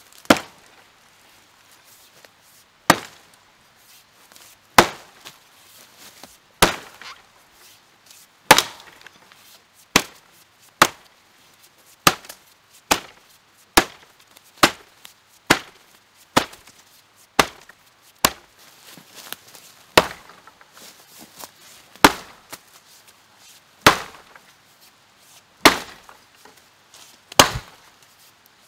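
A 700 g Rinaldi Calabria axe chopping a notch into a felled log, about twenty sharp single blows into the wood. The strikes come roughly every two seconds at first, close to one a second through the middle, then slow again.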